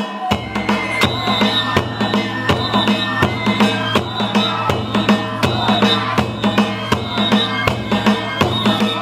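Danjiri festival music (hayashi) played live on the float: a taiko drum beaten in a steady, even rhythm, with a Japanese transverse bamboo flute (fue) playing a melody over it.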